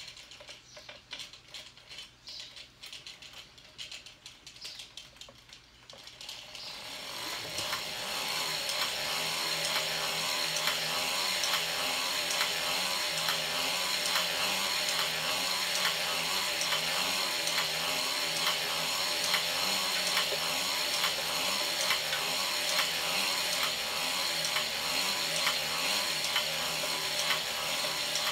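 Hand-cranked circular sock machine: a few scattered clicks at first, then from about six seconds in the crank is turned steadily and the latch needles clatter continuously through the cams as it knits round after round.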